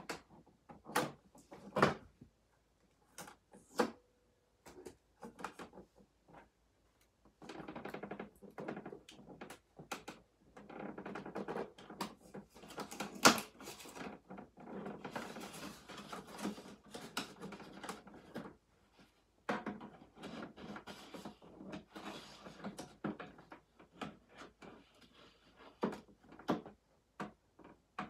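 A hard plastic toy camper and its packaging being handled: irregular clicks and knocks of plastic parts, with two long stretches of rustling and scraping in the middle as tape and cardboard packing are worked off.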